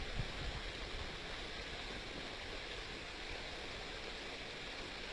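Muddy rainwater runoff rushing over the ground in a heavy downpour: a steady, even rushing hiss of flowing water and rain.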